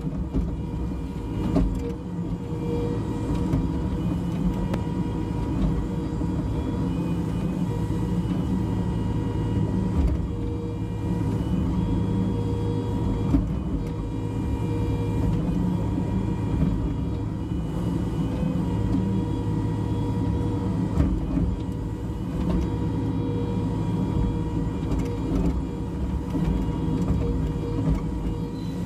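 Cat 305.5E2 mini excavator working, its diesel engine running steadily under load with a constant whine. A few short knocks are scattered through it.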